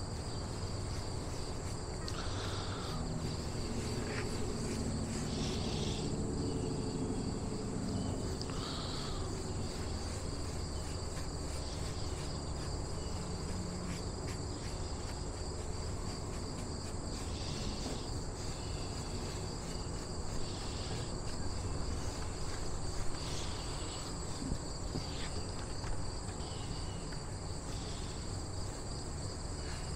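Outdoor insect chorus, crickets and similar insects trilling steadily at a high pitch, swelling a little every few seconds. A low hum sits under it in the first several seconds.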